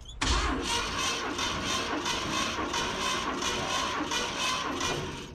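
Ford 460 big-block V8 turned over on its starter motor for a compression test, with the spark plugs out and a gauge in one cylinder. It cranks evenly at about four pulses a second, then stops.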